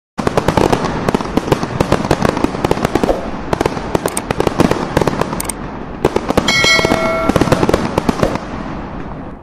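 Fireworks bursting: a dense, rapid run of sharp bangs and crackles, with a brief ringing tone about six and a half seconds in, cutting off suddenly at the end.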